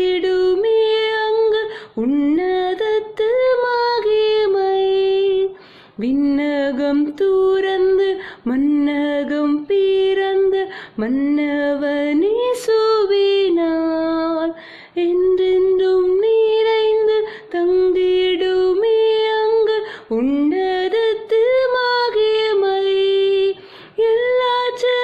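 A woman singing a carol solo and unaccompanied, holding long sung notes in phrases of a few seconds with short breaths between them.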